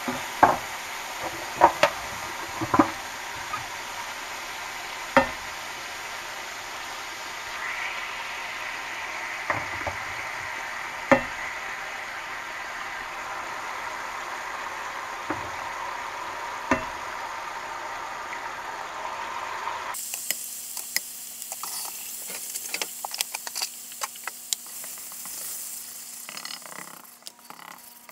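Eggs sizzling in country-ham grease in a cast-iron skillet, with a scattering of sharp knocks against the pan in the first half. After a sudden cut about two-thirds of the way in, the sizzle is quieter and a fork scrapes and clicks against the skillet as the eggs are scrambled.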